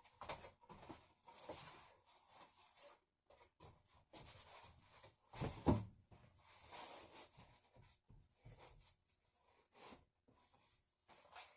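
Serrated bread knife sawing through a foam mattress pad in short, irregular scratchy strokes, with one louder thump about halfway through.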